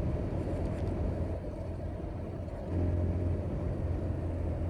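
Motorcycle engine running steadily while riding, heard as a low rumble with road noise, growing slightly louder about two and a half seconds in.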